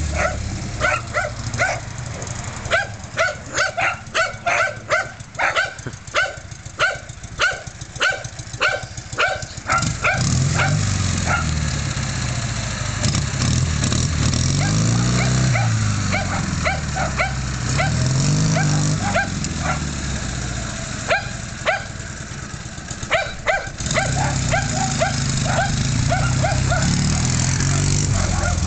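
A dog barking over and over, about two barks a second through the first ten seconds and more sparsely after. Under it, a Ural sidecar motorcycle's flat-twin engine runs, rising and falling in pitch in slow swells from about ten seconds in as it is ridden around.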